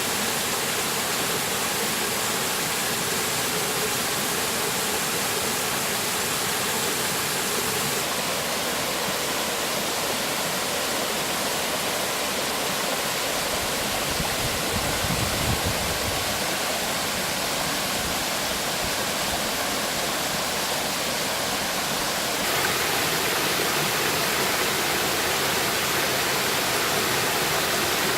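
Mountain stream water running over rocks, a steady even rush that grows a little louder and brighter near the end. A brief low rumble sounds about halfway through.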